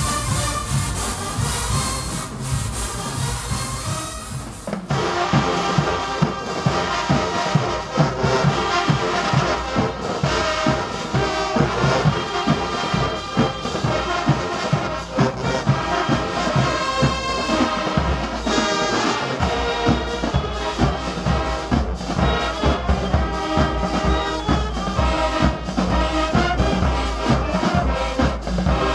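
Marching band brass and drums playing loudly. About five seconds in the sound cuts abruptly to another passage.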